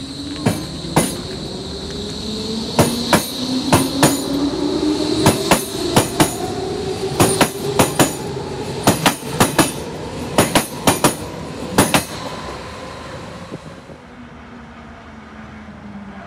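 Berlin S-Bahn electric train pulling out and accelerating past: its traction motors whine, rising steadily in pitch, under loud paired clicks of wheels over rail joints that come faster and faster. The clicking stops about twelve seconds in and the train fades away.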